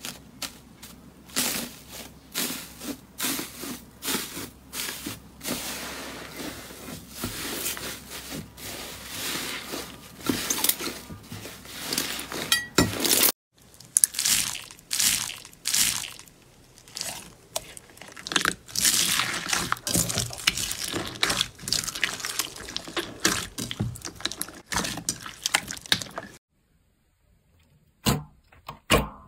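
Hands crinkling and pressing slime coated in blue metallic foil, a dense crackling rustle. After a brief break, a hand presses through slime packed with small foam beads, crunching and crackling. Near the end come a few short wet squishes from clear blue slime.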